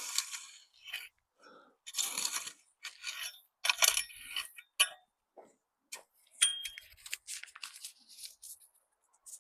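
Paper seed packet of wild rocket being handled and torn open: irregular crinkly rustles and tearing in short bursts with pauses.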